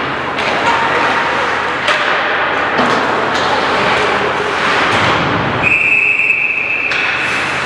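Ice hockey game sounds: pucks and sticks knocking against the boards over a steady rink hubbub. Near the end a referee's whistle blows one steady, high note lasting about a second, stopping play.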